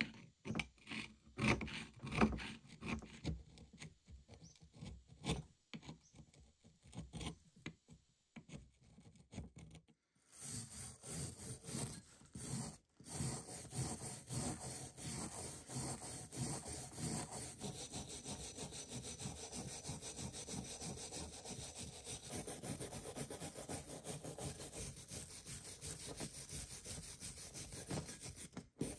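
A steel chisel scraping thick rust scale off a heavily rusted forged hammer head in separate, uneven strokes. About ten seconds in this gives way to a small steel wire brush scrubbing the rusty head rapidly and steadily.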